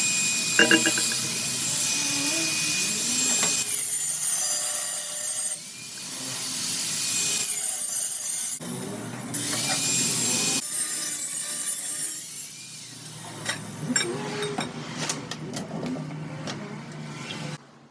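Power saw cutting metal pipe: a steady whine under a harsh hiss, in three runs of a few seconds each. Lighter scraping and clicks follow, and stop just before the end.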